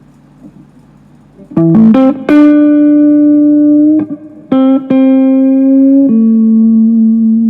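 Electric guitar played as single notes after a set-up: a quick run of rising notes, then long sustained notes, with a lower note held near the end.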